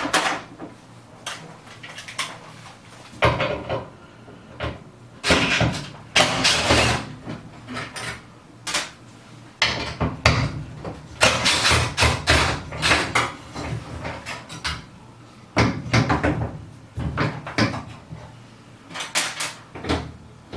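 Tools working the hinge bolts of a front-load washer's door: about five short bursts of rattling and knocks, with a low hum under them.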